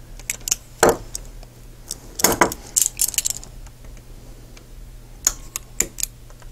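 Curved-jaw locking pliers clicking and clinking against a plastic toy figure's shoulder joint as they squeeze a pin flush: scattered small sharp clicks, with a cluster a little over two seconds in and a few more near the end.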